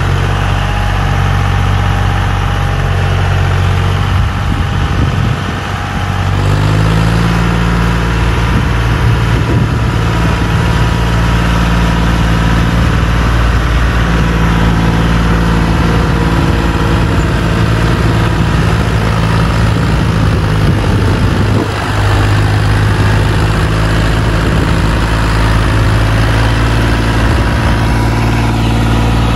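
John Deere 5042 D tractor's three-cylinder diesel engine running under load while pulling a fully loaded soil trolley. The revs rise about six seconds in, just after a brief dip in level, then hold steady, with another short dip about 22 seconds in.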